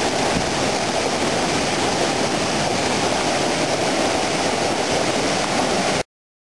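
Treated wastewater pouring over a concrete weir into a churning, foaming channel: a steady rush of falling water. It cuts off abruptly about six seconds in.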